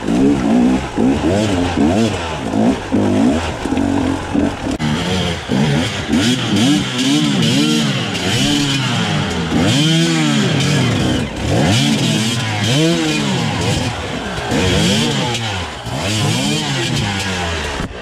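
Enduro dirt bike engine revved up and down over and over in short blips, about once a second, as the bike struggles up a rocky, wet creek bed.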